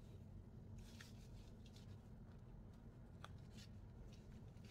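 Near silence: low room hum with a few faint, light clicks and rustles.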